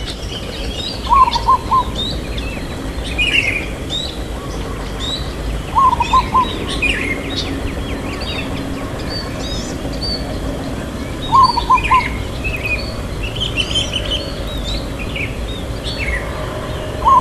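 Zebra dove (perkutut) cooing: short phrases of about four quick, even notes, repeated every five or so seconds. Other small birds chirp at a higher pitch in the background.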